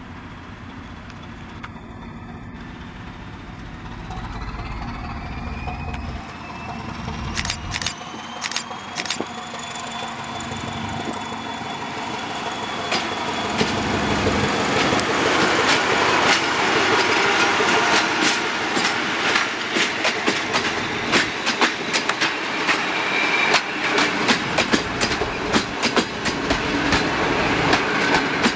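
SM42 diesel-electric shunting locomotive approaching with its engine running and a thin rising whine, then passing close by. Its coaches follow, rolling past with a loud, rapid clickety-clack of wheels over rail joints.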